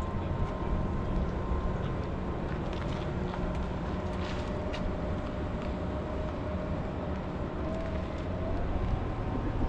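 Steady low rumble of outdoor background noise, with a faint hum that rises slightly about eight seconds in.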